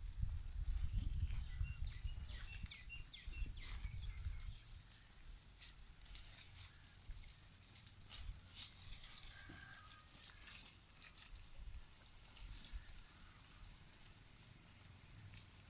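Outdoor farmyard ambience: wind rumbling on the microphone, loudest in the first few seconds, with scattered rustles and clicks of animals moving, a few faint high chirps and a faint steady high-pitched tone.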